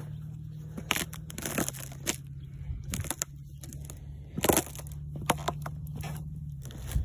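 Footsteps on thin frozen-pond ice, the ice cracking and crunching in sharp, irregular snaps under each step without breaking through; the loudest crack comes about four and a half seconds in. A low steady hum lies underneath.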